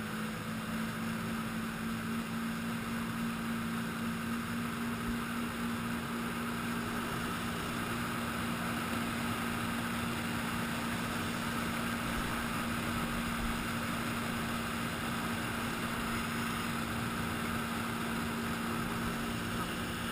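Jet ski engine running steadily at speed while towing an inflatable ringo tube: a constant low hum over the rush of its churning wake.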